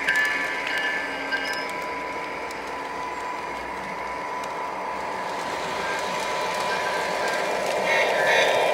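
Lionel Metro-North four-car model train running along its track: wheels clattering over the rails with an electric motor whir and a thin steady tone, growing louder near the end.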